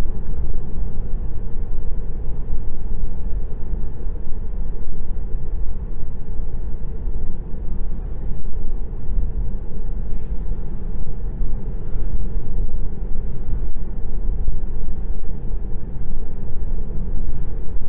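Steady tyre and road rumble heard inside the cabin of a Tesla Model 3 electric car cruising at about 40 mph.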